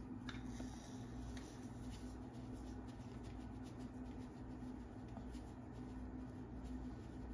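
Faint granular rustle of sugar pouring from a canister into a plastic measuring cup, over a steady low hum.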